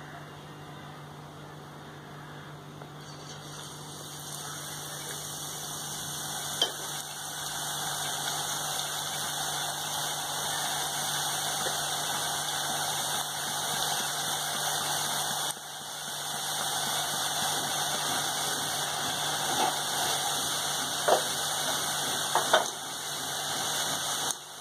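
Hot oil sizzling steadily as drops of gram-flour batter fall through a perforated ladle and fry into boondi, starting about three seconds in. A few sharp clicks come through the sizzle.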